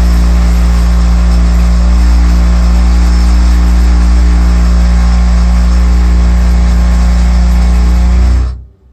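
Triangle Tube Prestige Solo 110 gas condensing boiler running with a very loud vibration noise: a steady low hum under a rough rushing noise. It stops abruptly near the end.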